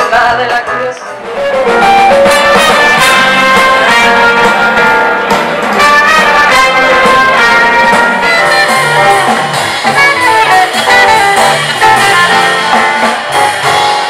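Jazz big band playing live, its trumpets and trombones loud and to the fore. About a second in, a short stretch of a different song gives way to the band.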